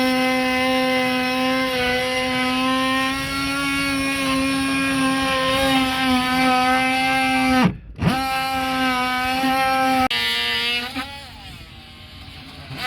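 Power drill motor running with a steady whine. It stops and starts again about eight seconds in, then runs quieter with its pitch wavering near the end.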